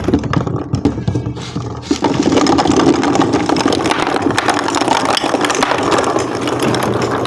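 Many marbles rolling and clattering down a marble-run track. Separate knocks and clicks at first, then about two seconds in they thicken into a dense, continuous rattle as the mass of marbles pours through.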